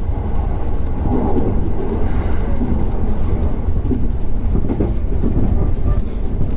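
Train running, with a steady low rumble.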